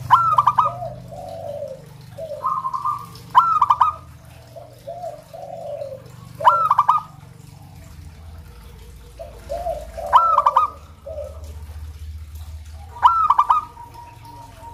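Zebra dove (perkutut) cooing, the same song phrase repeated five times about every three seconds. Each phrase opens with a quick stutter of high notes and falls into a few lower, rolling coos, over a faint low hum.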